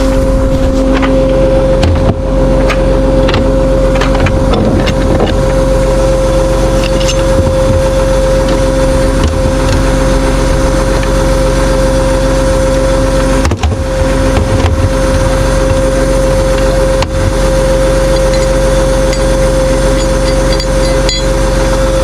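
Vehicle engine running steadily, a constant hum that holds one pitch, broken by two brief dips a little past the middle.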